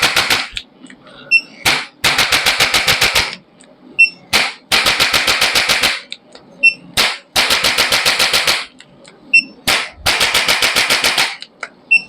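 Handheld chiropractic adjusting instrument firing repeated bursts of rapid sharp thrusts, about ten clicks a second for a second or so each, four long bursts with single clicks between them.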